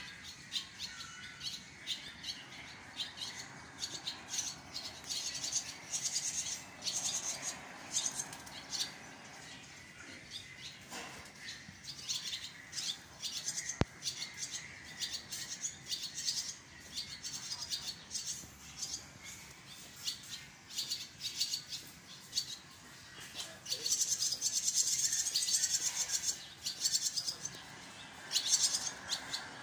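Barn swallows, young and adult, twittering: a run of rapid, high chirps that grows denser and louder near the end. A single sharp click about halfway through.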